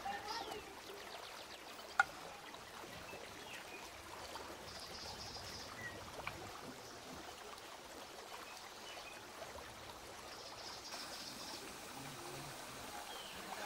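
Steady trickling of water, with one sharp click about two seconds in.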